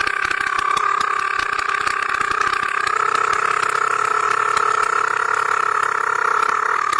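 A man's voice holding one long, steady buzzing vocal sound with a fast flutter, a drawn-out sound-effect imitation.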